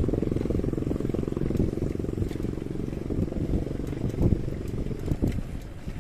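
A motor vehicle engine running close by, a steady low pulsing that fades after the first few seconds and gives way to uneven low rumbling.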